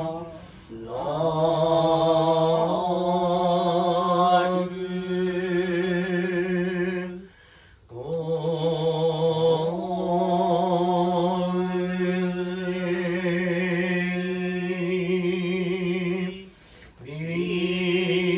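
Buddhist priests chanting in long, steady held notes on one pitch, each phrase sliding up into its note. There is a short break for breath about seven seconds in and again near the end.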